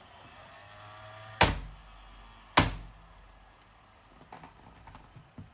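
Two loud knocks about a second apart, followed near the end by a few light clicks: parts and tools being handled while the analyzer's reaction disc lamp assembly is taken apart.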